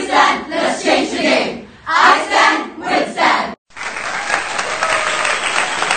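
A group of young voices chanting a campaign song in unison. About three and a half seconds in, it cuts off abruptly and gives way to steady applause with crowd voices.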